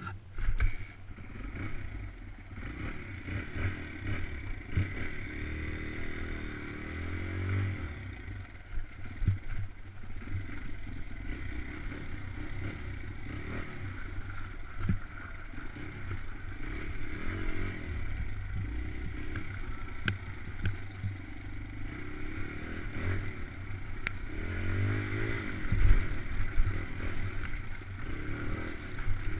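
Dirt bike engine running as it is ridden, revving up and down with a few rising surges, with rattles and knocks from the bike over rough ground.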